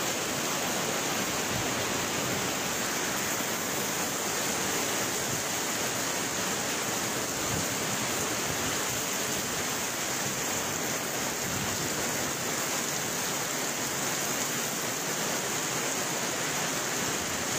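Heavy rain pouring down in a steady downpour on a flooded street and parked cars, an even hiss of water with no let-up.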